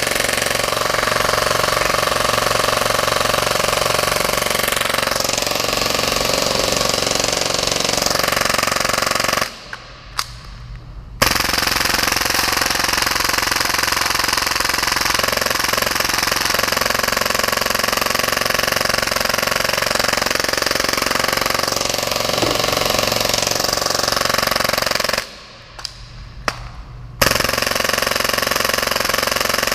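Full-auto Tokyo Marui Hi-Capa airsoft pistol, tuned to fire 30 rounds a second, firing a long, continuous rattling stream on a compressed-air tank. The fire stops twice for under two seconds, about a third of the way in and again near the end, each time resuming with a sharp click.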